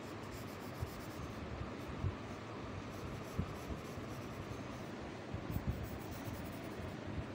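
Graphite pencil scratching across paper as straight lines are drawn out from a vanishing point, with a few soft taps along the way.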